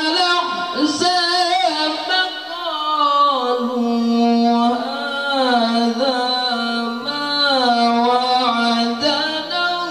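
A male Quran reciter (qari) chants in a high, melismatic style through a microphone. He holds long notes with wavering ornaments, dips lower through the middle, and climbs again near the end.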